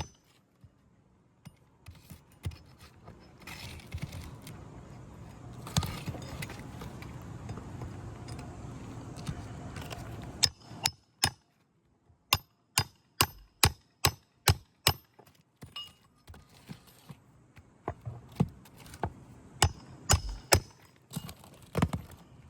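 A series of sharp taps and clicks, with an even run of about three a second near the middle and scattered single knocks around it.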